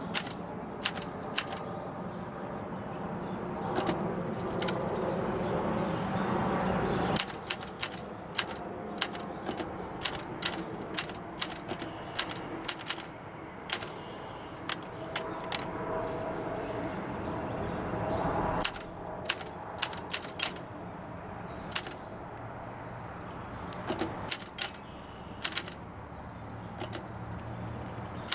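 Olympia SM9 manual typewriter being typed on: sharp key clacks come irregularly in short runs, a few a second, with brief pauses between runs.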